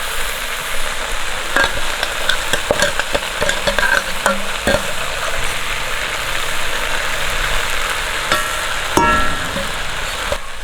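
Aviyal vegetables cooking in a pan with a steady sizzle, while a spoon stirs in the grated coconut, knocking and scraping against the pan in a run of clicks and one louder knock near the end.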